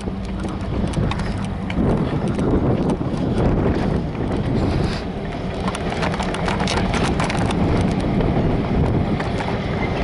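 Freight train of covered hopper cars rolling past: a steady low rumble with many sharp clicks and clacks of steel wheels over the rail joints.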